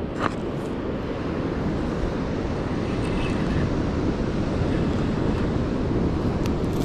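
Steady rumble of wind and breaking surf, with a short click just after the start.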